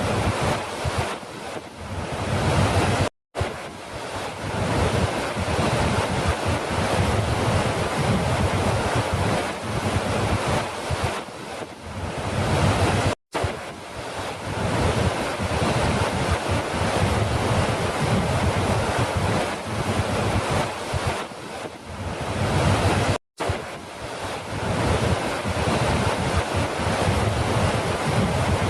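Steady rush of falling water, a dense unbroken wash of noise, cut by three brief drops to silence about ten seconds apart where the recording loops.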